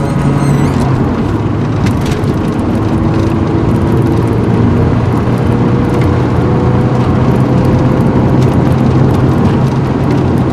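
Peugeot 306 GTi-6 heard from inside the cabin while driving: its 2.0-litre 16-valve inline-four runs with a steady low drone, under constant tyre and road noise.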